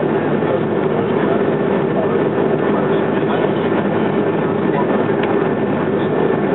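Steady cabin noise of a Boeing 737-300 taxiing, its CFM56 jet engines running evenly with a constant hum.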